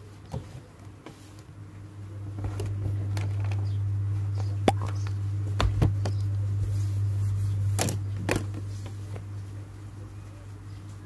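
Scattered light taps and clicks as a tablet in its case is handled on a desk, over a steady low hum that swells in the middle and eases off near the end.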